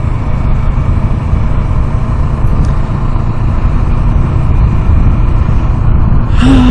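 Kawasaki Ninja motorcycle cruising at steady speed, the engine and wind rush on the microphone blending into a loud, steady low rumble.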